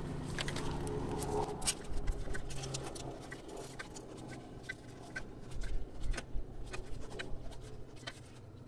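A C-clamp's screw being wound in against a front brake caliper, pushing the piston back into its bore, with scattered light metallic clicks and ticks from the clamp handle and threads.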